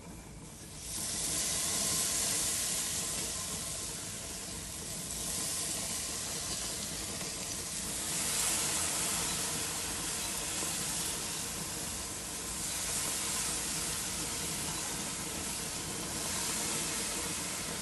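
Chicken sizzling on a hot grill as teriyaki sauce is brushed on and drips onto the flames below, a steady hiss that comes up about a second in and swells and eases every few seconds.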